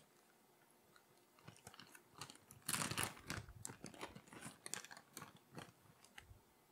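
Faint crinkling and crackling of a plastic bag of shredded cheese being handled, a quick run of crackles starting about a second and a half in and loudest around three seconds in.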